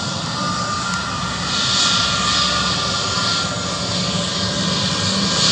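Pratt & Whitney PW1100G geared turbofan engines of an Airbus A320neo running at taxi power while the jet rolls along the runway: a steady whine over a rushing hiss that grows a little louder about a second and a half in.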